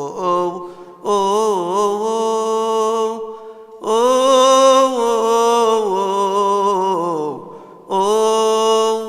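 A solo male voice chanting a Coptic Orthodox hymn, unaccompanied, in long drawn-out phrases with the pitch wavering and turning on each held vowel. He pauses briefly about a second in, near the middle, and near the end.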